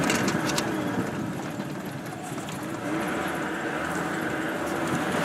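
Off-road vehicle engine running as it is driven along a muddy dirt track, with a few sharp rattles in the first second and the engine note rising slightly about three seconds in.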